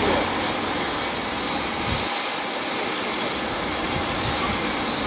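Airbus A320 jet airliner on final approach, its engines heard as a steady, even roar with no distinct tones. A low rumble under it drops away about two seconds in.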